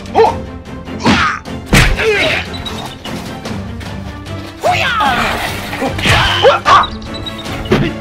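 Background music with a string of sharp punch and hit sound effects from a hand-to-hand fight, several in the first two seconds and more from about five seconds in.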